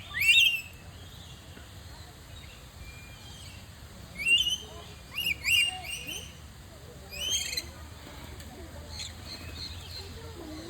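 Caged birds calling: about five short, shrill calls that each drop in pitch, one about half a second in and the rest in a cluster from around four to seven and a half seconds in.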